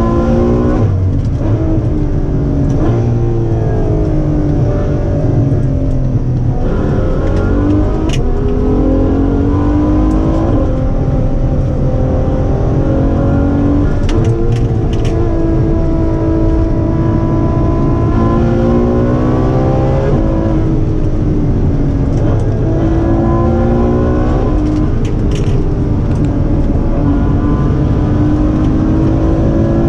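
Ferrari F12berlinetta's naturally aspirated 6.3-litre V12 pulling hard from inside the cabin, its pitch climbing under acceleration and dropping at each gear change, several times over. A few sharp ticks cut through now and then.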